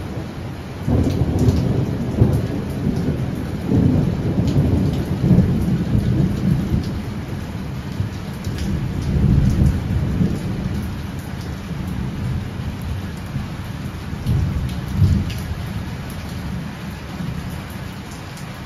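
Long rolling thunder in heavy rain. The rumble breaks in sharply about a second in, swells and ebbs in several waves, the last about fifteen seconds in, then eases. Under it all is the steady hiss and patter of heavy rain.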